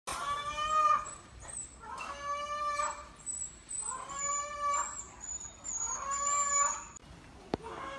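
An animal crying out in distress, four long drawn-out cries about two seconds apart, taken by the uploader for the pitiful cries of an animal being slaughtered. A single sharp click comes near the end.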